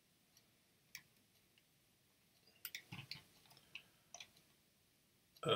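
Faint, scattered computer mouse clicks and scroll-wheel ticks: a few around one second in and a cluster around three to four seconds in.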